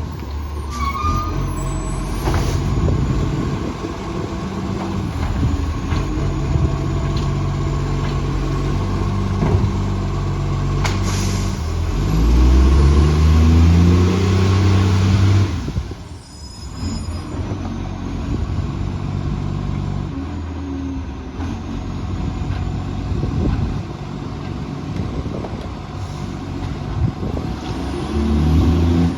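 Garbage truck's diesel engine running and revving up several times, the revs climbing loudest a little past the middle and again near the end, with a brief hiss about eleven seconds in. The uploader describes the truck as having a massive exhaust leak.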